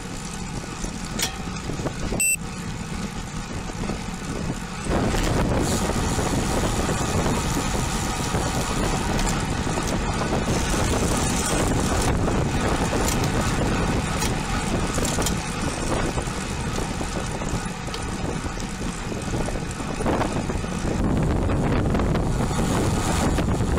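Steady rush of wind and road noise on a bike-mounted camera while cycling, louder from about five seconds in. A short click about two seconds in.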